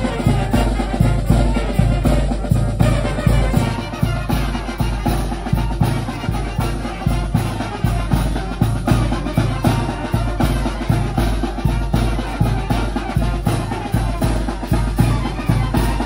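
Oaxacan brass band playing: clarinets, trumpets, trombones and sousaphone over a bass drum and snare keeping a steady beat.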